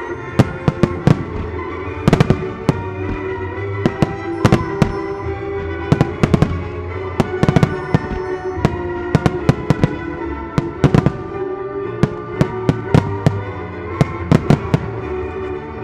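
Starmine fireworks display: shells bursting in sharp bangs at an irregular pace, often in quick clusters of several, over music that plays along with the show.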